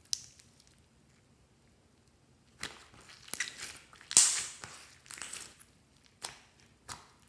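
Glossy slime being kneaded, pressed and squeezed by hand, giving short sticky crackling bursts. The loudest burst comes about four seconds in, when a fist squeezes the slime.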